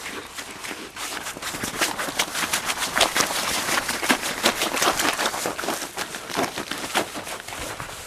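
Fresh snow crunching: a quick, irregular run of crisp crackles that grows louder about a second in and eases off near the end.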